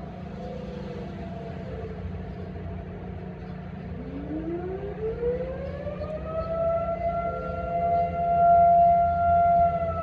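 Outdoor warning sirens sounding for a routine test. Faint distant sirens hold steady tones, then about four seconds in a nearer siren winds up from a low pitch to a steady high tone that swells louder near the end.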